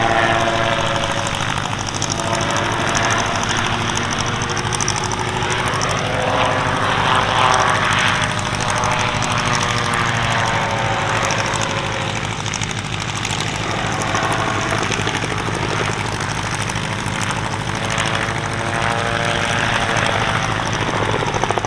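Calidus autogyro's 115 hp Rotax 914 engine and propeller running at display power in flight, its pitch falling slowly early on and rising again in the second half as the machine manoeuvres.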